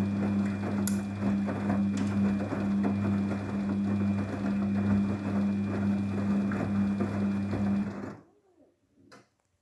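Daewoo DWD-FT1013 front-loading washing machine running with a steady low hum during a cotton 40°C wash cycle. The hum stops abruptly about eight seconds in, followed by a faint click.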